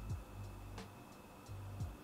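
Background music with a slow beat: deep kick drums falling in pitch about once a second over sustained bass notes, with sharp light clicks.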